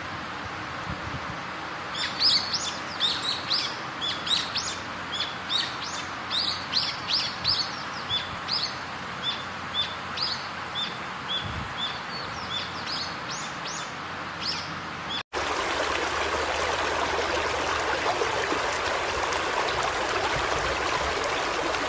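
A bird calling with short, high chirps, about two a second for some thirteen seconds, over a steady outdoor background hiss. Partway through there is a sudden cut, and after it only an even, louder rushing noise remains.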